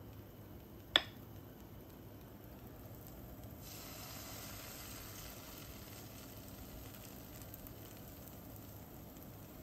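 Pancake batter sizzling faintly in an oiled non-stick frying pan; the hiss grows a few seconds in as more batter is poured from a metal measuring cup. A single sharp clink about a second in.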